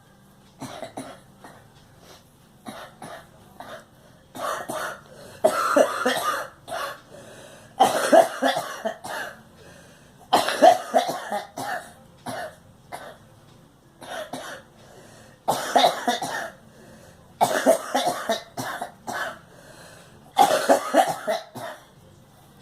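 A girl coughing over and over: short bursts of coughs every second or two, some of them longer, louder fits of several coughs run together.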